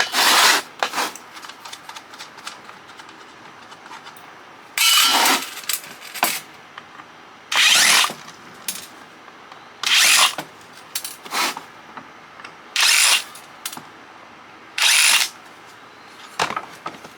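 Cordless power drill/driver run in about six short bursts a few seconds apart, each about half a second to a second long, backing screws out of a CB radio's case.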